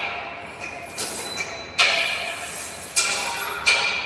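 Metal clanks from work on the steel frame of a rotary screen printing press being installed: about four ringing strikes roughly a second apart, the loudest about two seconds in and near the end.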